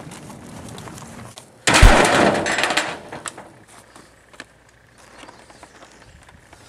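A rusty steel drum lid strikes a body: about two seconds in, a sudden loud crash with a deep thud and a metallic rattle and ringing that dies away over about a second, followed by a few small knocks.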